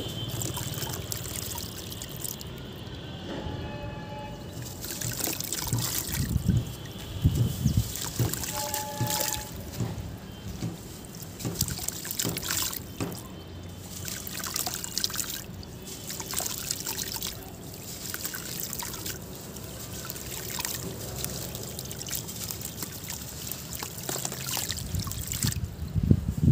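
Soft, gritty sand-cement block crumbling between hands into a tub of water: sand trickling and pattering onto the water surface with small splashes, and heavier splashes a few seconds in and again near the end as a chunk drops into the water.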